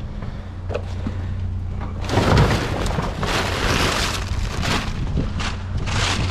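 A truck engine idling with a steady low hum. About two seconds in, loud clattering and scraping of junk being handled starts and keeps going, heaviest at the start.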